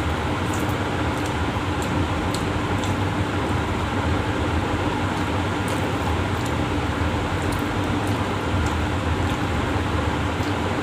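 Steady background noise of an electric fan running, an even rush with a low steady hum in it. Faint small ticks of eating rice by hand and chewing come through now and then.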